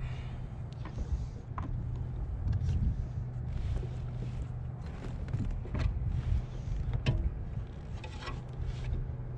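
Plastic lure bag crinkling, with scattered clicks and knocks of fishing gear being handled aboard a kayak, over a steady low rumble.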